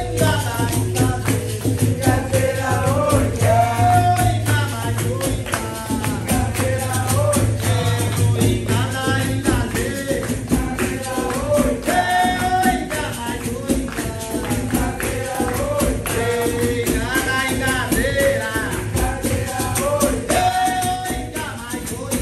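Capoeira music: voices singing a song over a steady percussion rhythm with tambourine-like jingles.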